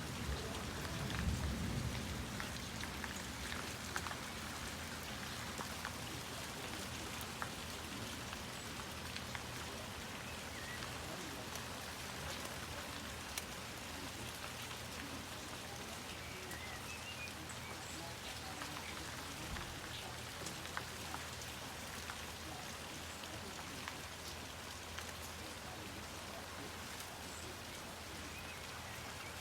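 Steady rain falling on plants, a constant hiss with many sharp ticks of drops striking. There is a brief low rumble about a second in.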